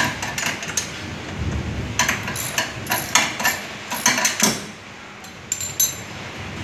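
Scattered metallic clinks and taps of a hand tool and small metal parts being handled at a washing machine's motor, with a cluster of sharp knocks in the middle and a few more near the end.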